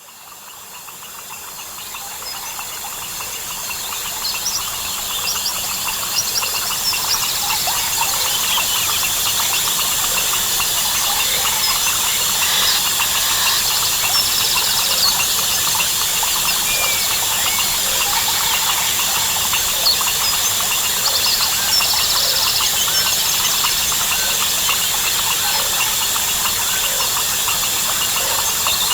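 Rainforest chorus of crickets, frogs and birds: steady high insect trilling, frogs calling in short repeated pulses, and scattered bird chirps and calls. It fades in over the first several seconds.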